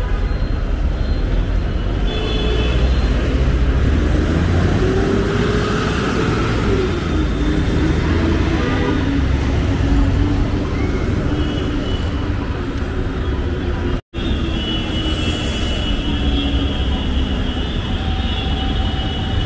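Road traffic on a busy city street: vehicles running past with a steady low rumble, one engine rising and falling in pitch as it passes about five seconds in. The sound cuts out for an instant about fourteen seconds in.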